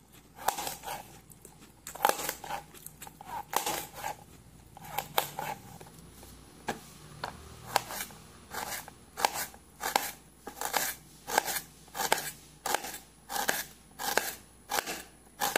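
Kitchen knife slicing vegetables on a plastic cutting board: short sharp taps of the blade cutting through onto the board. Early on the cuts come in uneven clusters; in the later part, slicing a red onion, they come steadily about one and a half a second.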